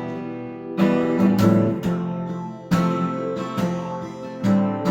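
LAG HyVibe acoustic guitar strummed: several chords about a second apart, each left to ring.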